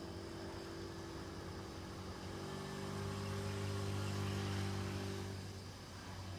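A low, steady engine hum that grows louder in the middle and then fades away, like a motor vehicle passing at a distance.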